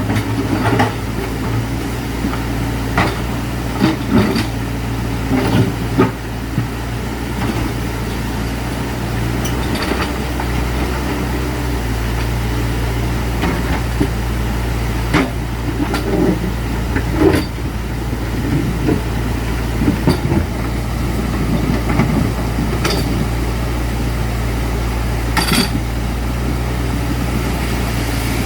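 A steady low engine hum, like an idling motor, with scattered short clicks and knocks.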